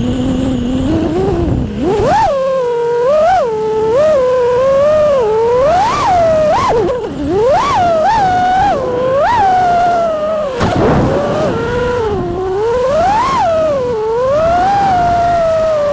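An FPV racing quadcopter's brushless motors (AMAXinno 2306 1950kv on 6S) and props are whining. The pitch holds low and steady for the first second or so, then sweeps sharply up and down with repeated throttle punches and drops.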